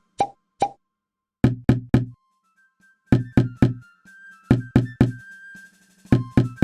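Background music built on percussive knocks: groups of three quick hits that repeat about every one and a half seconds, with sustained high tones between them.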